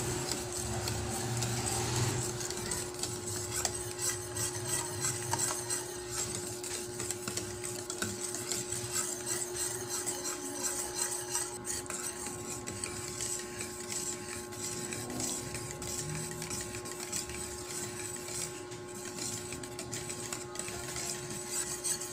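A spoon stirring a thickening cornstarch-and-peanut sauce in a pan, with soft continuous scraping and small ticks against the pan, over a constant steady hum.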